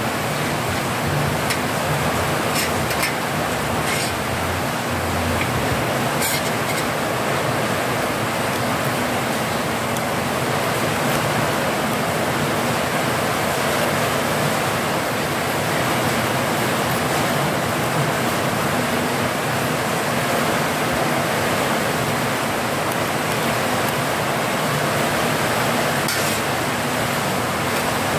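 Heavy rain falling, a steady, unbroken rushing hiss, with a few faint clicks.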